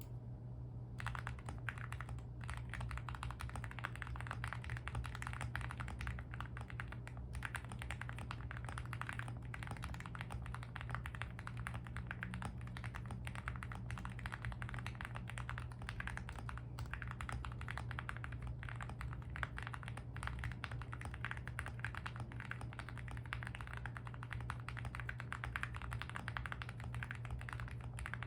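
Continuous fast typing on a Meletrix Zoom75 mechanical keyboard fitted with lubed Everglide Aquaking linear switches and GMK Tuzi keycaps, foam-dampened for a deep, creamy thock; keystrokes begin about a second in and run on densely over a steady low hum.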